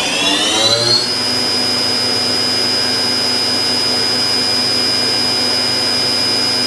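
Spindle of a 1999 Daewoo DMV-500 vertical machining center speeding up from 4,000 to 6,000 RPM. A whine rises over about the first second, then holds as a steady high whine.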